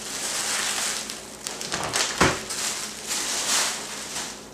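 Bubble wrap and a plastic anti-static bag crinkling and rustling as a laptop is unwrapped by hand, with a dull thump about two seconds in.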